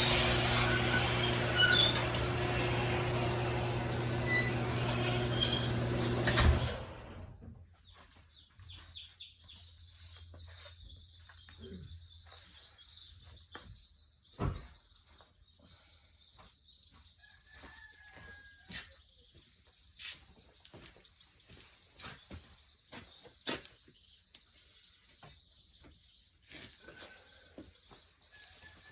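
Predator small engine on a rototiller running at a steady speed, then shut off about six and a half seconds in. After it stops, birds chirp faintly over a steady high hiss, with scattered light clicks.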